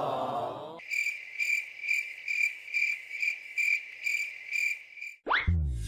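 Cricket chirping: a steady high trill that pulses about twice a second, starting about a second in. Near the end comes a quick rising glide.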